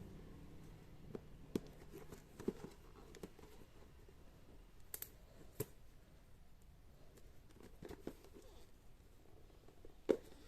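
Faint, scattered clicks and taps of a package being handled and opened, with a sharper click near the end.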